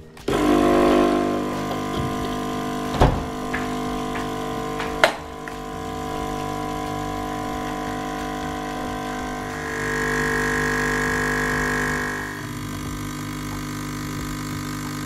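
Home espresso machine's pump switched on and running with a steady buzzing hum while espresso pours into the mug. Two sharp clicks come about three and five seconds in, and a higher tone joins the hum for a couple of seconds near ten seconds in.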